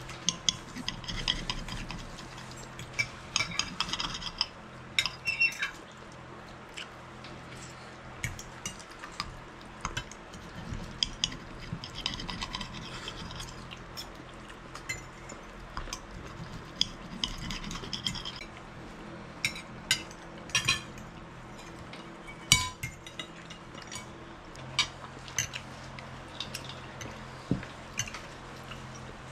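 Knives and forks clinking and scraping on dinner plates as people eat: many sharp clinks scattered throughout, with a few longer scrapes.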